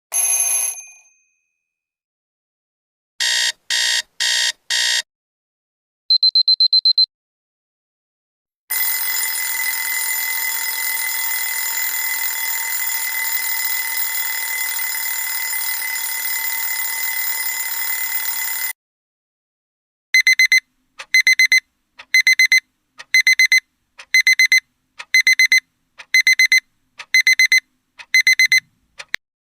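A sequence of different alarm clock sounds: a single ring that dies away, four short harsh buzzes, a quick burst of high beeps, then a continuous ringing lasting about ten seconds. After a short gap, a beeping alarm repeats a little faster than once a second until the end.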